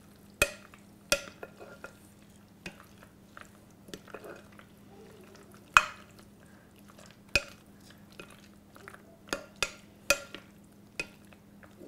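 A spatula stirring and folding pasta salad in a glass mixing bowl, with irregular knocks of the spatula against the glass, some ringing briefly; the loudest knock comes about six seconds in.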